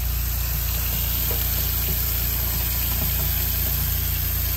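Tap water running in a steady stream into a stainless steel kitchen sink and straight down the plughole, a continuous even hiss with a steady low hum underneath. The sink is draining freely, its fat blockage cleared.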